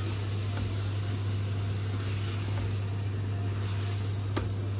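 Stovetop cooking noise: a large pot of water at a rolling boil and food being stirred with a wooden spoon in an open pressure cooker, over a steady low hum. A light knock of the spoon against the pan comes near the end.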